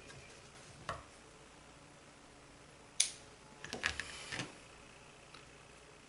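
Tabletop handling noise while parachute shroud line is worked with: a faint click about a second in, a sharp click about three seconds in, then a short cluster of clicks and rustling.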